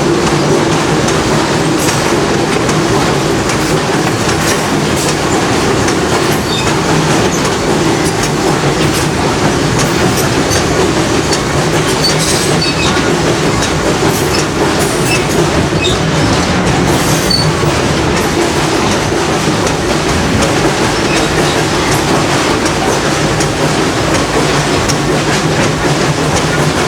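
Passenger train coach in motion on the rails: a steady rumble of wheels and running gear, with clickety-clack and brief high-pitched wheel squeals now and then.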